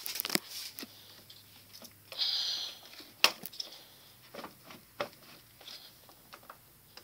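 Light clicks and knocks of tools and parts being handled, with a brief scraping rustle about two seconds in and one sharper click a second later.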